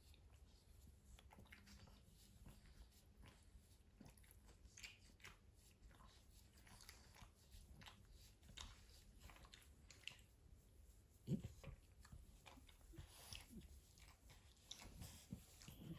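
Near silence with faint rustling and soft clicks as hands rub and knead a Yorkshire terrier's fur, and a single soft thump about eleven seconds in.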